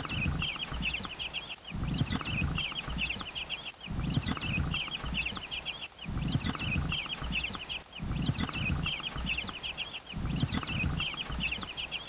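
Columbian Wyandotte chicks peeping continuously in quick, high-pitched runs. A low rumble of wind on the microphone rises and falls underneath about every two seconds.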